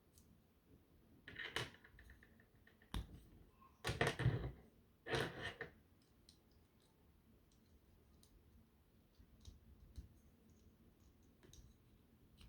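Hard plastic Bionicle pieces being pulled apart and set down. A few louder clusters of clicks and rattles come in the first half, then scattered faint clicks.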